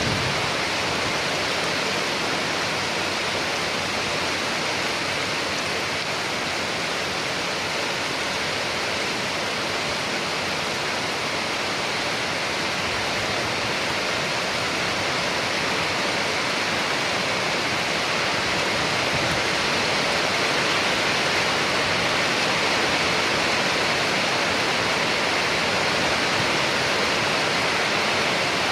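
Rain falling steadily, an even hiss with no separate drops standing out.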